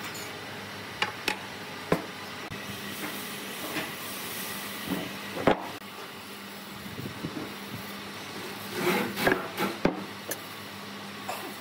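Irregular knocks and taps on wood: a handful of single sharp hits, the loudest about halfway through, then a quick cluster of knocks near the end. A steady hiss with a faint low hum runs underneath.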